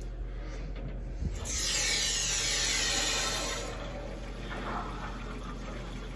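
Water rushing into a drained water heater tank through the newly plumbed supply lines after the valves are opened: a loud hiss of flowing water for about two seconds, starting shortly after a light knock, then easing to a softer hiss over a steady low hum.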